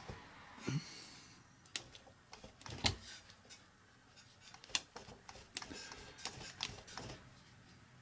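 Irregular metal clicks and knocks from a vintage sewing machine as it is worked by hand, its needle bar stiff with varnished old oil. The loudest knock comes about three seconds in.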